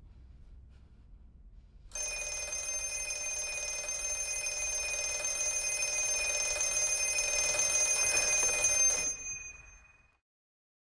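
An old wall-mounted telephone's bell ringing in one long unbroken ring. It starts suddenly about two seconds in, grows louder, then cuts off about nine seconds in, dying away within a second.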